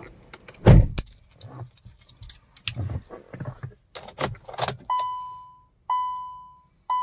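Car keys jangling and clicking in the Hyundai Creta's ignition, with a louder thump about two-thirds of a second in. From about five seconds in, the dashboard warning chime dings about once a second, each ding fading out, three times, as the ignition is switched on before the engine is started.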